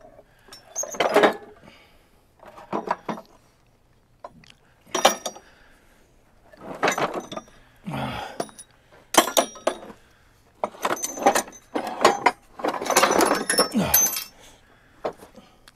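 Heavy iron castings and parts being shifted by hand on a wooden pallet, clanking and scraping against each other in a string of knocks with a metallic ring, every second or two.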